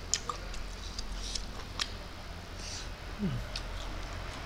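Eating sounds: a man chewing food with his mouth closed, giving scattered soft clicks and smacks, with a brief squeak about three seconds in, over a steady low hum.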